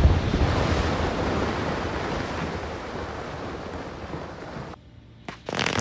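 The rumble of a rock blast dying away, a dense noise that fades slowly over about five seconds and then cuts off. Another blast begins just before the end.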